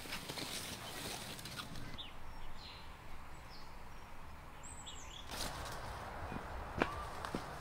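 Dry grass and brush rustling and crackling underfoot as someone walks through overgrown vegetation. From about two seconds in until about five and a half seconds it drops to a quieter stretch where a few short bird chirps are heard.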